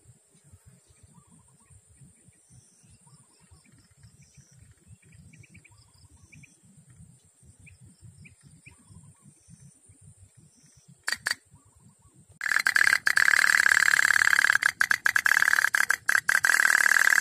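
Faint outdoor ambience: birds chirping over a steady high insect buzz. A sharp click comes about eleven seconds in. About a second later a loud, steady high-pitched tone with a crackly edge starts suddenly and drowns out everything else.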